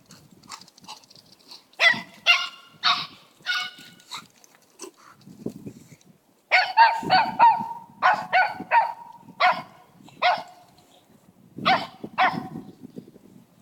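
Papillon puppy barking in high-pitched yaps, in quick runs with pauses between.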